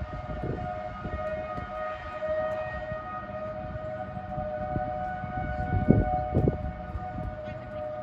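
Outdoor tornado warning siren sounding, a held wail of two close tones that waver slightly in pitch. Low thumps and rumble hit the microphone, the loudest two about six seconds in.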